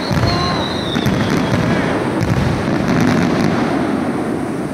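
Aerial fireworks bursting in a display, with several sharp bangs over a dense crackle, and a high whistle falling in pitch in the first second.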